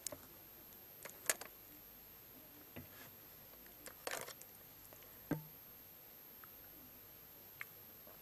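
Faint room hiss with a few scattered sharp clicks and taps, the loudest about a second in and another with a dull knock about five seconds in.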